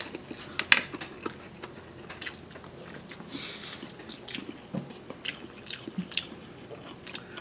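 A person chewing spicy instant noodles, with soft wet mouth clicks and smacks and a short hiss about three and a half seconds in.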